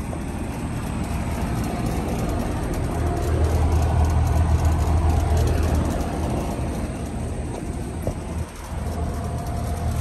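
Central air conditioner condensing units running: a steady low compressor hum with the rush of the condenser fans, louder for a few seconds in the middle.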